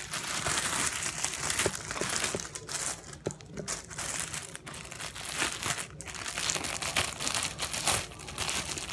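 Crinkling and crackling as a glossy purple slime is stretched, pulled and squeezed by hand, with many small clicks and pops that rise and fall.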